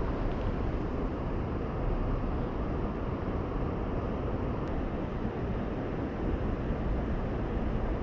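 Steady low outdoor rumble with no distinct events, of the kind made by distant traffic and wind on the microphone.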